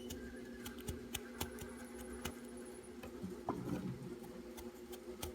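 Fidget toys being handled and played with: scattered small clicks and taps at an irregular pace, over a steady low hum.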